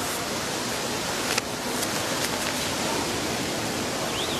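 Steady outdoor hiss of location ambience, with a single faint click about a second and a half in and a faint short chirp near the end.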